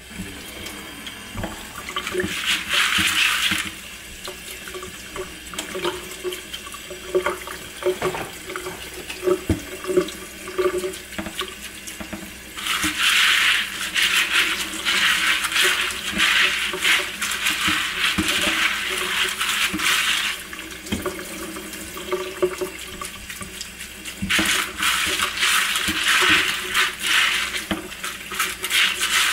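Kitchen faucet turned on, its stream running into a plastic colander of dry beans in a stainless steel sink while a hand stirs the beans. The water gets louder in three stretches, with small clicks and rattles between them.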